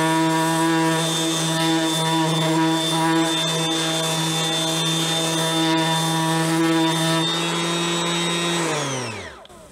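Ryobi RROS18C brushless 18 V random orbital sander running steadily on its third speed against a wooden board, a steady hum. Near the end it is switched off and winds down with a falling pitch, stopping within about a second.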